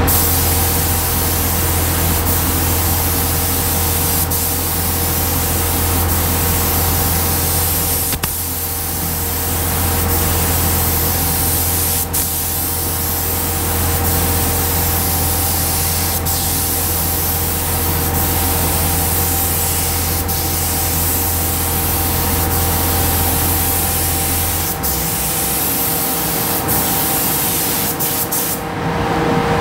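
Gravity-feed compressed-air paint spray gun hissing steadily as it sprays paint onto a car body panel, with a few brief breaks. A steady low hum runs underneath and stops about 25 seconds in.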